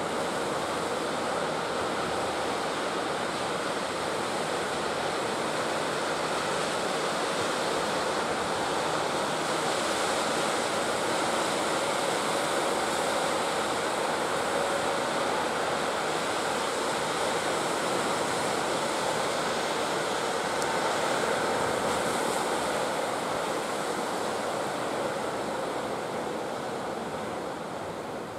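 Ocean surf breaking and washing in a steady rush of water noise, easing slightly near the end.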